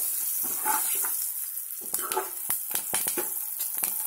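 Green chillies, curry leaves, mustard seeds and cumin sizzling in hot oil in an aluminium pot. A spatula stirs and scrapes the pot, and small pops and crackles are scattered through the sizzle.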